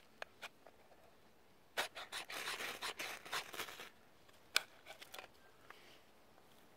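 Knife blade shaving thin curls off a split stick of dry wood: a few light ticks, then a quick run of rasping strokes about two seconds in. A sharp click and a few smaller ones follow.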